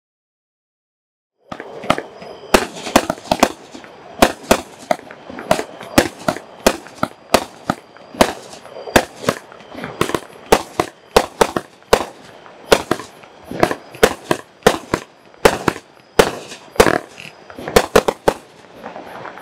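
A 25-shot, 200-gram consumer fireworks cake (Dominator Purple Party) firing its shots in quick succession. It starts about a second and a half in, then gives a sharp report every half second to a second, with a steady noisy bed between the shots.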